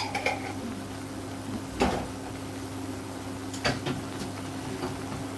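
Induction hob humming steadily under a pan of simmering sauce. A few sharp knocks stand out over it: one about two seconds in, and two close together near four seconds.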